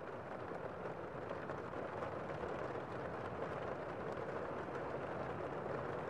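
Heavy rain falling outside, heard from inside a room: a steady, muffled rush of rainfall with faint scattered ticks of drops.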